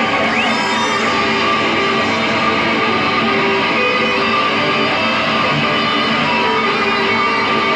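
Two electric guitars played through effects pedals as improvised noise music: a dense, steady wall of sound with scattered held tones and a short rising squeal just under a second in.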